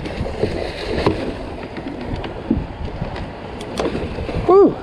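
Wind and water noise aboard a small fishing boat, with a few sharp clicks and knocks of handling, and a short vocal sound near the end.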